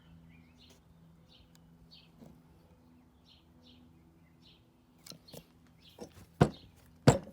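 Hammer striking a punch to set a new pin through a bench vise casting: a few light taps from about five seconds in, then two sharp metallic strikes, the last the loudest. Small birds chirp repeatedly in the background.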